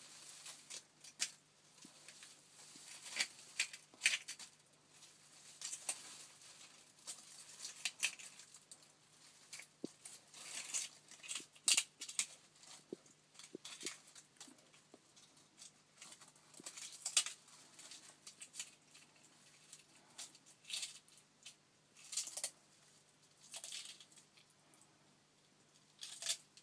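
Argentine black-and-white tegu eating, crunching eggshell in its jaws, with dry leaves crackling as it moves. Irregular sharp crackles and clicks, some loud, come in scattered clusters.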